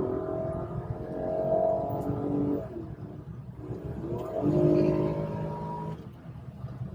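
Car engine accelerating, its pitch climbing twice with a drop in between, running on freshly changed oil.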